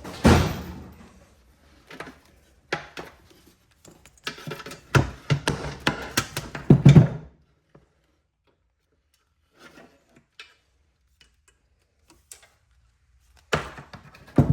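Knocks and clunks of metal parts and tools as the Polaris front differential case is tapped and split apart. There is a loud knock just after the start, a few lighter ones, a dense run of loud knocks about five to seven seconds in, then a pause before one more clunk near the end.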